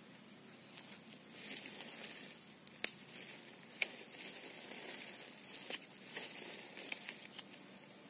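Knife blade scraping the scales off a small fish in short scraping strokes, with a few sharp clicks of the blade.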